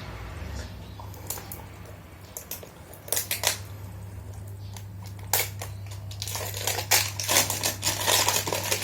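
Crinkling and crackling of plastic packaging as a sealed box is unwrapped, a few scattered crackles at first, then dense crackling in the last few seconds.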